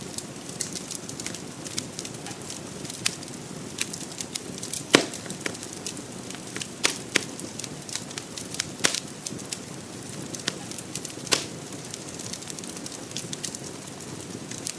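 Fire burning: a steady low rush of flame with irregular sharp crackles and pops, the loudest about five seconds in.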